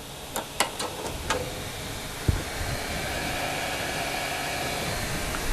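Hot air rework station blowing steadily, an even airy hiss. A few light clicks in the first second and a half and a single thump about two seconds in.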